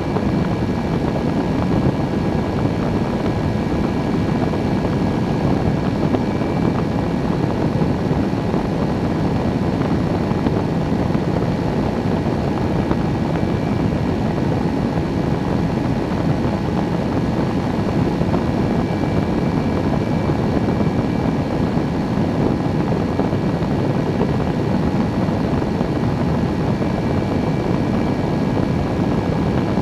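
Engine and pusher propeller of a microlight trike running steadily in cruise flight, mixed with rushing air, an unchanging drone with faint steady whining tones above it.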